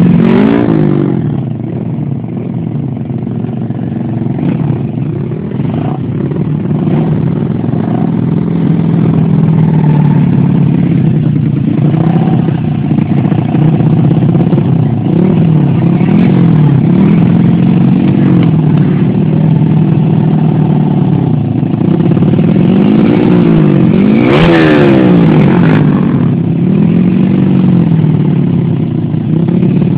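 Small motorcycle engines revving up and down again and again, their pitch rising and falling. One sharp rev about 24 seconds in is the loudest.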